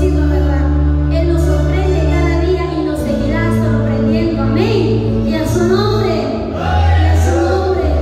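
A woman singing into a handheld microphone over backing music. Sustained bass notes underneath change about three seconds in and again near the end.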